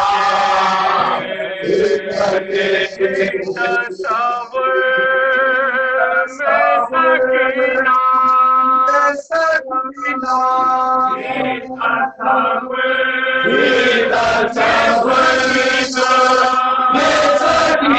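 A man chanting a noha, a Shia mourning lament, into a microphone, in long held melodic lines with short breaks between phrases.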